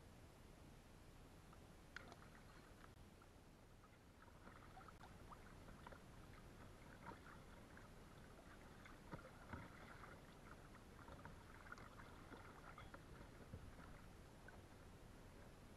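Faint water splashing and dripping around a kayak, scattered small splashes thickening about four seconds in.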